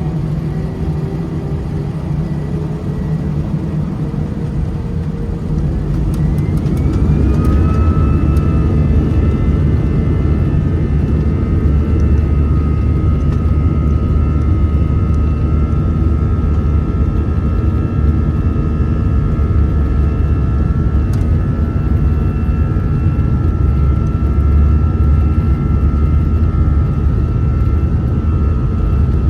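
Airbus A319 jet engines spooling up to takeoff thrust: a whine rises in pitch and the sound grows louder about six to eight seconds in, then holds as a steady high whine over a loud low rumble.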